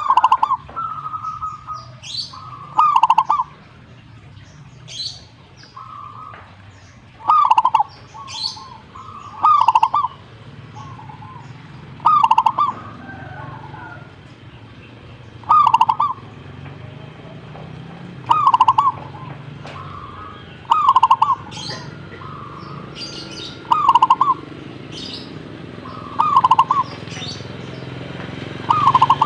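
Zebra dove (perkutut) cooing its rolling, trilled song phrase over and over, about every two and a half to three seconds, with short higher-pitched chirps between the phrases.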